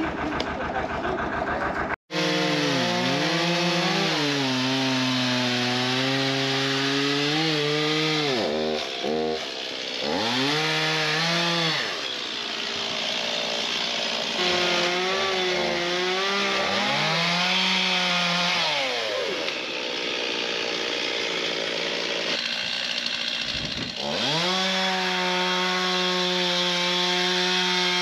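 A chainsaw running at high revs and cutting into the fallen tree's wood. Its pitch dips several times as the chain bogs under load and climbs back as it frees. The first two seconds hold a different, lower engine ticking over, cut off abruptly.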